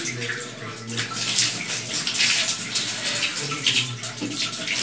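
Water running from a tap into a washbasin, with irregular splashes as cupped hands scoop water and splash it onto the face.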